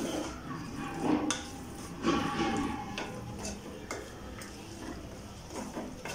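Spoon stirring a thick spiced jackfruit fry in a metal pot, scraping and knocking against the pot's sides in a few strokes, loudest about one and two seconds in.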